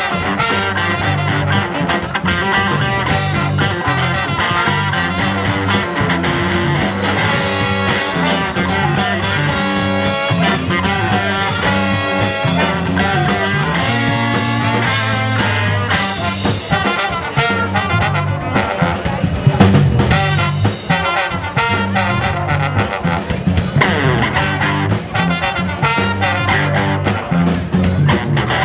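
Live band with a horn section of trombone, trumpet and saxophone over electric guitar, bass guitar and drum kit, playing an instrumental tune.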